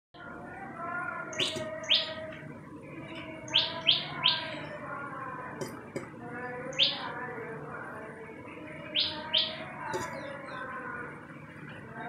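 Tailorbird calling: loud, sharp notes that fall in pitch, given in short runs of one to three, about eight in all, over softer background chatter of other birds.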